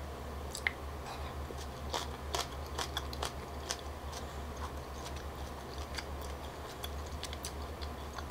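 Close-miked eating sounds: soft, scattered mouth clicks and smacks of someone chewing chewy Korean rice cakes (tteokbokki), with a wooden spoon scraping and tapping in a ceramic bowl, over a faint steady low hum.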